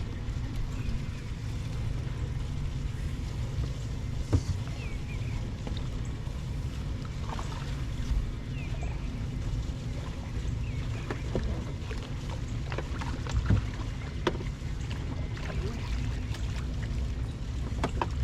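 Steady low rumble of wind and water around a bass fishing boat, with a couple of sharp knocks on the boat and a few faint short chirps.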